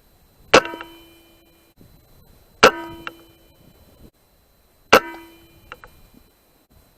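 Three sharp rifle shots about two seconds apart, each followed by a metallic clang that rings on for about a second, with a few faint clicks in between.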